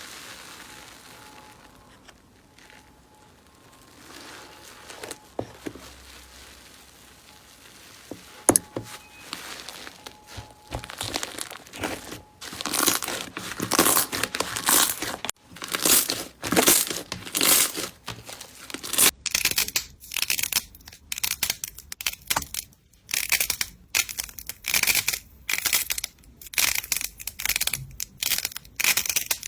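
Slime being squeezed and pressed by hand, giving crackling, crinkling sounds in short repeated squeezes. It is faint for the first several seconds, with one sharp click, and from about twelve seconds on comes a steady string of crackly bursts, one or two a second.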